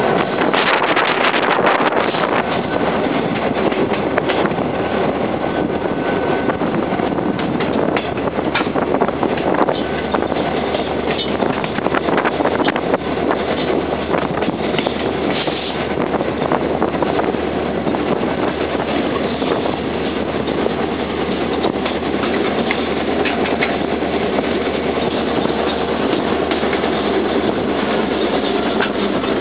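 Train running along the track: a steady rolling noise with occasional knocks, and a faint low hum joining about a third of the way in.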